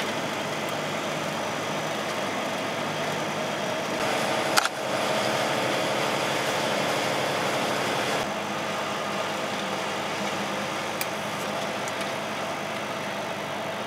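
Volvo truck's engine and tyre noise heard from inside the cab, running steadily on a snow-packed road, a little louder for a few seconds in the middle, with one sharp knock about four and a half seconds in.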